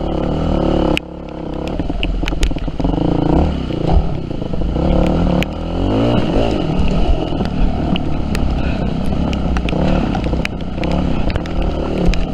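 Yamaha WR250F's four-stroke single-cylinder engine revving up and down under changing throttle while riding off-road. Repeated sharp clattering knocks come from the bike over rough ground.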